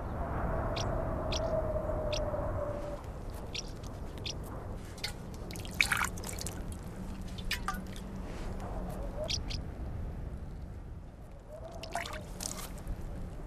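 Water poured from a clay jug into cupped hands and splashed onto the face, heard as scattered drips and splashes with the loudest about six seconds in. A faint held tone sounds during the first three seconds.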